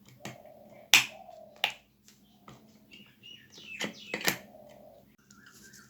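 Several sharp plastic clicks, the loudest about a second in: a repaired mobile phone charger being plugged into a mains socket and the wall switch flipped to test whether it powers on.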